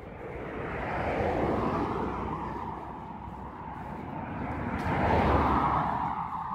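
Cars driving past on an asphalt road, one after another: a rush of tyre and engine noise swells about a second in and fades, then a second, louder pass-by comes near the end as a sedan goes by and pulls away.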